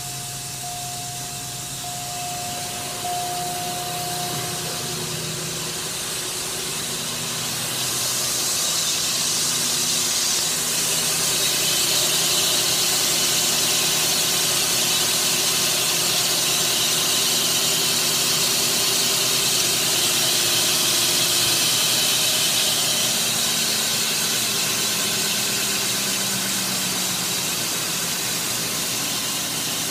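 A 2005 Cadillac DeVille's 4.6-litre Northstar V8 idling, heard at the open engine bay. A high hiss grows louder about eight seconds in.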